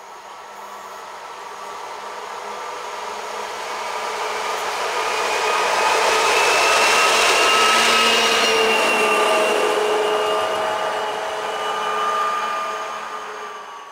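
DB Cargo class 232 'Ludmiła' diesel locomotive running light past: a drone with a whine that swells, is loudest about halfway through, then fades with a smaller swell near the end.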